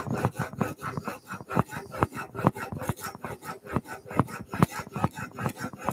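Steel chisel bevel, clamped in a Veritas honing guide, scraped back and forth over self-adhesive abrasive film on a glass plate. It makes a quick, regular rasping, one scrape per stroke. The bevel is being ground right up to the edge, and the steel is heating up from the friction.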